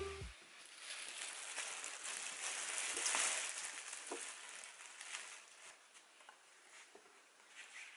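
Thin plastic bag rustling and crinkling as a straw hat is taken out of it, loudest about three seconds in, then fading to softer handling with a few light taps.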